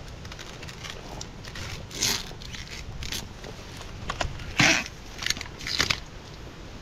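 Crackling and crunching of dry leaves and twigs on a forest floor, with about five sharp snaps at irregular intervals. The loudest snap comes a little past halfway.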